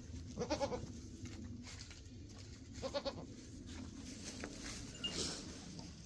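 Goat bleating twice, short calls about half a second in and again about three seconds in, with a brief rustle about five seconds in.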